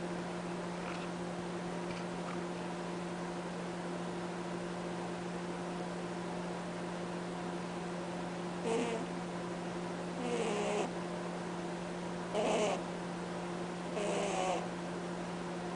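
Pet rabbit snoring in its sleep: over a steady hum, four short pitched honks start about halfway through, roughly every one and a half to two seconds.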